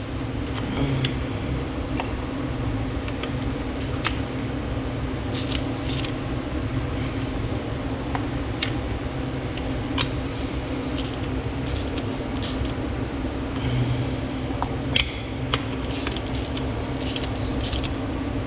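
Socket ratchet clicking in short, irregular runs as spark plugs are tightened down, over a steady background hum.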